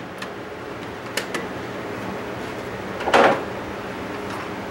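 Light clicks and clinks of tools and bolts being handled around an engine, with one short, louder burst of noise about three seconds in.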